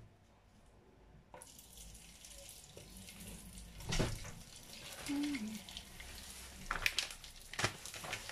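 Dried fish (daing) sizzling in hot oil in a frying pan: the hiss starts about a second and a half in as the fish goes in, and keeps on steadily, with a few knocks along the way.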